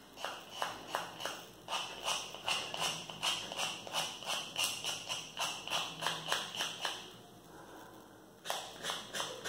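A nail file (emery board) sanding the edge of a small cut-out piece in quick back-and-forth rasping strokes, about three a second, to take off the burrs left from cutting. The strokes pause for about a second near the end, then start again.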